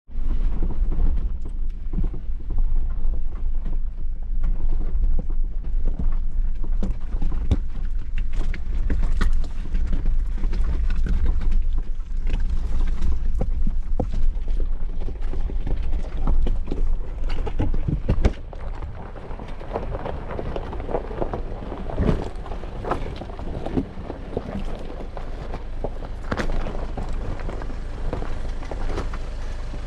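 Jeep climbing a steep trail of small loose rocks: a low engine and drivetrain rumble, with tyres crunching over gravel and frequent clicks and knocks of stones. It is louder for roughly the first two-thirds, then drops to a lower, steadier level.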